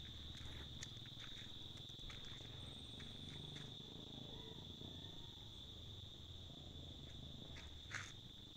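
Steady high-pitched insect drone on one unbroken tone, with scattered faint clicks and a sharper click near the end.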